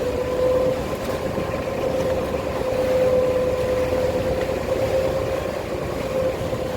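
Sampan's motor running steadily under way, a constant hum with a steady low rumble beneath.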